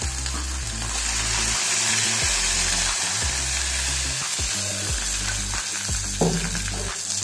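Whole fish frying in oil on a flat iron tawa: a steady sizzle. A few light knocks come as a steel plate and a weight are set on top of the fish.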